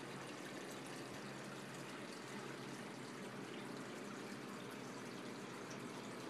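Steady noise of moving water from a saltwater reef aquarium's circulation, with a low steady hum underneath.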